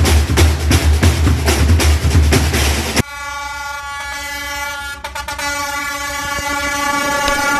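Drum-heavy music cuts off about three seconds in and gives way to a diesel locomotive's horn. The horn sounds one long, steady chord as the train approaches.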